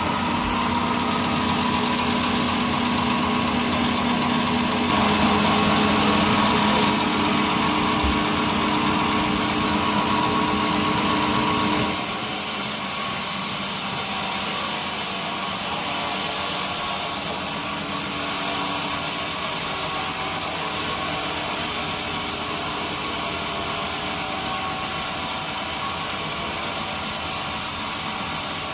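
A small power tool's motor running steadily with a hum and hiss. About twelve seconds in the sound shifts abruptly to a brighter, hissier tone.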